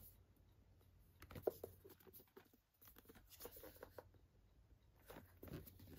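Faint handling noises as metal steelbook disc cases are lifted and turned over in the hand: light rubs and clicks, with the sharpest tap about one and a half seconds in.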